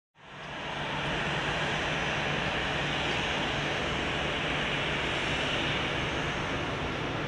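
Boeing 737-800's CFM56-7B turbofan engines heard from a distance on final approach: a steady rushing jet noise with a low hum beneath, fading in over the first second.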